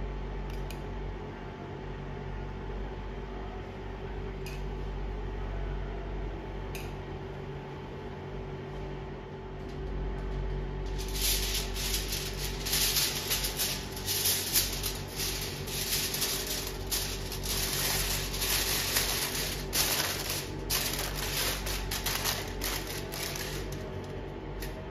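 A steady low hum from an induction cooktop's cooling fan. From about eleven seconds in, aluminium foil crinkles and rustles loudly and irregularly as it is spread and pressed over a biryani pot to seal it.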